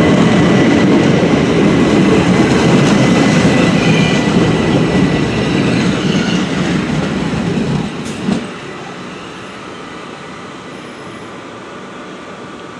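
Southeastern Class 375 Electrostar electric multiple unit running along the platform, a loud rumble of wheels on rail that drops away abruptly about eight seconds in with a single knock, leaving a quieter steady hum.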